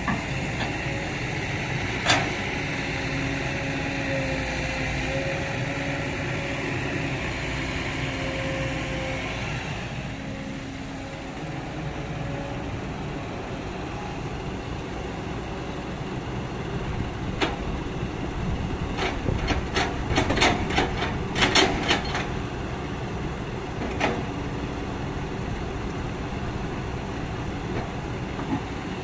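Kobelco hydraulic excavator's diesel engine running steadily under load, with a steady hydraulic hum through the first third as it digs and swings. A sharp knock about two seconds in, and a run of knocks and clatter about two-thirds of the way through as the bucket empties soil into the dump truck's steel bed.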